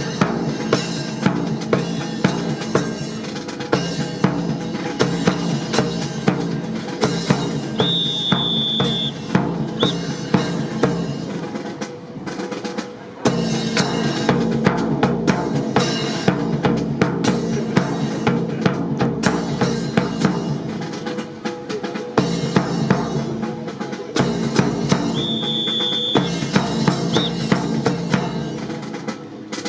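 Drum-heavy percussion music with a fast run of sharp snare- and rimshot-like hits, the accompaniment to a rifle drill routine. A short high tone sounds about eight seconds in and again near the end.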